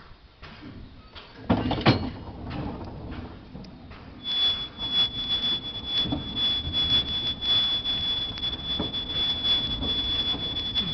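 A steam-hauled goods train running, its wagons rattling and clattering over the track, with a loud knock about one and a half seconds in. From about four seconds a steady, high-pitched metallic squeal from the wheels sets in and holds.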